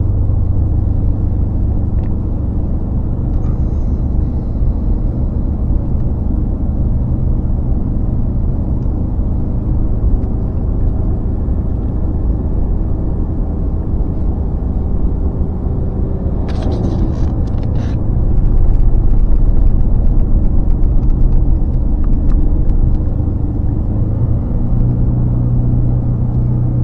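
Engine and road rumble heard inside a moving vehicle, a steady low drone. A brief rattle comes about two-thirds of the way through, and the rumble gets heavier after it.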